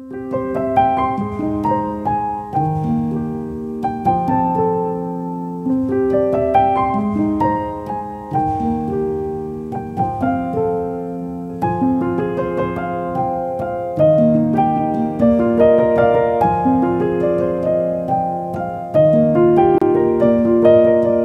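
Background piano music: a slow melody of single notes over lower chord notes, played at a steady pace.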